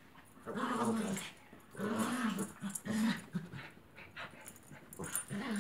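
Small dogs play-growling as they wrestle: a run of short growls, about five in a row with brief pauses between.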